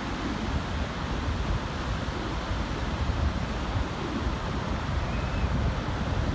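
Ocean surf breaking offshore as a steady wash of waves, with wind buffeting the microphone as a rumble underneath.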